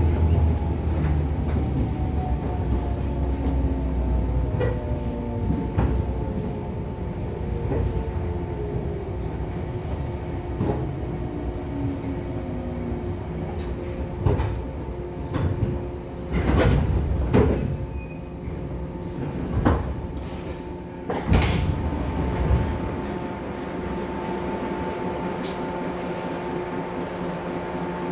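Interior running sound of a 415 series electric train's motor car braking into a station: the motor and gear whine falls steadily in pitch as it slows. A cluster of clunks and thumps follows as it comes to a stop, then a steady electrical hum while it stands.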